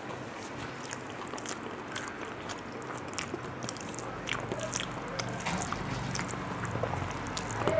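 Close-up chewing of a mouthful of rice and curry: small, irregular wet mouth clicks and smacks.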